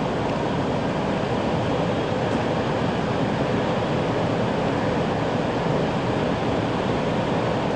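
Steady rushing running noise inside the passenger cabin of a Tokaido Shinkansen train travelling between stations, with no change in level.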